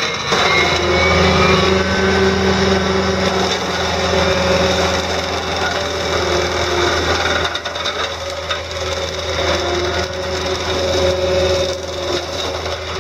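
Brown Raptor forestry mower head, driven by a 13 GPM hydraulic motor on a CAT 305.5E mini excavator, spinning and chewing through brush and small trees, over the steady hum of the excavator's diesel engine. The sound is continuous, with a slight drop in loudness about halfway through.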